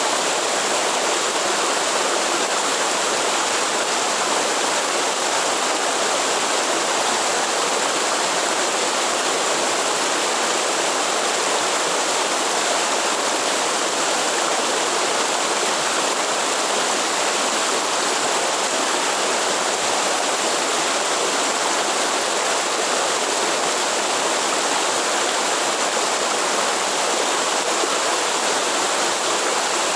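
Steady rush of a waterfall and its stream in the Atlantic Forest: falling and running water, even and unbroken throughout.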